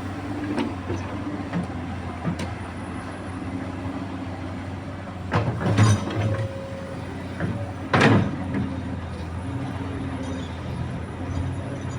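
Komatsu PC200 hydraulic excavator's diesel engine running steadily, with loud heavy knocks from the working machine in a cluster about five and a half seconds in and again about eight seconds in.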